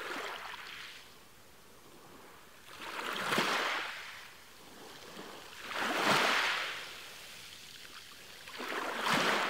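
Ocean surf, waves washing in and drawing back, swelling three times about three seconds apart.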